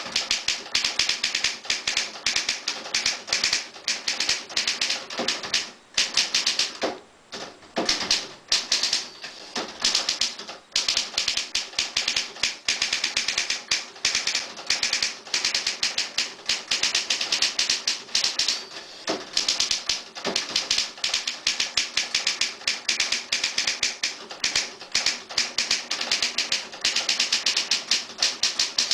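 1950s Triumph Perfekt manual portable typewriter being typed on: rapid, uneven clatter of typebars striking the platen, several keystrokes a second, slowing to a few single strikes about six to eight seconds in.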